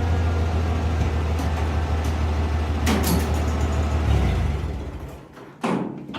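Oliver 1550 tractor engine running steadily, then shut off about four seconds in, dying away within a second. A sharp knock comes near three seconds and a short clunk near the end.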